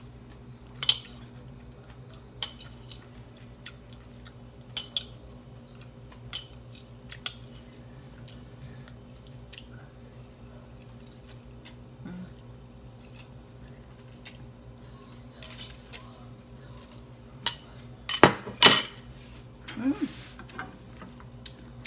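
Metal fork clinking against a glass bowl of noodles, single sharp taps a second or two apart, then a louder cluster of clinks near the end. A steady low hum runs underneath.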